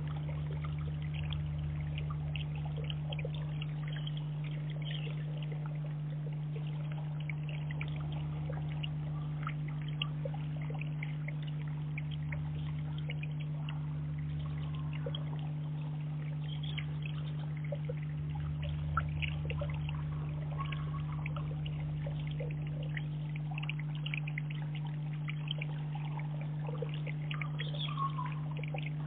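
Water trickling steadily in a garden pond, over a constant low hum, with scattered faint ticks.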